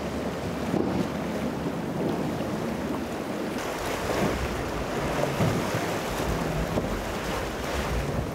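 Waves washing and wind buffeting the microphone, with a boat's engines running underneath as a low steady hum.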